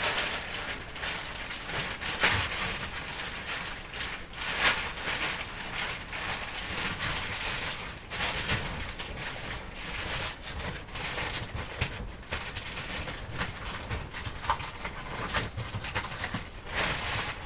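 A heavy black plastic contractor trash bag rustling and crackling as it is shaken open and pushed down into a plastic trash can as a liner. The rustling comes in irregular bouts.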